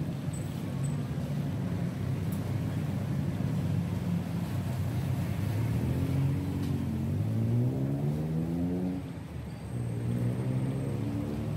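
A motor vehicle engine running close by with a steady low hum. It rises in pitch as it accelerates about seven seconds in, drops briefly, then rises again near the end.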